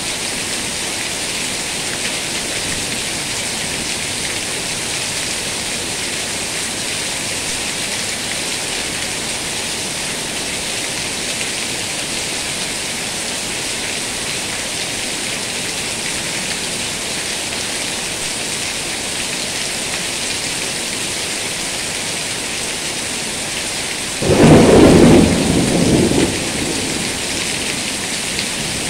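Heavy rain pouring steadily. Near the end comes a sudden, loud clap of thunder that rumbles on for about two seconds before the rain alone returns.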